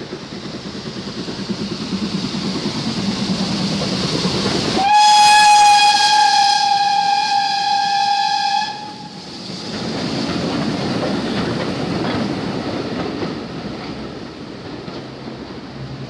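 Steam train running past with a carriage rumble and wheel clicks, and a single long steady steam-whistle blast of about four seconds near the middle. The running noise fades toward the end as the train draws away.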